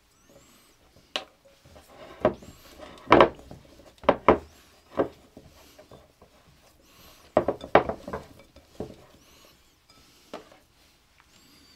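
Glass mixing bowl knocking and clinking on a wooden tabletop as sticky hotteok dough is kneaded in it by hand: a dozen or so irregular knocks, with soft squishing and rubbing between them.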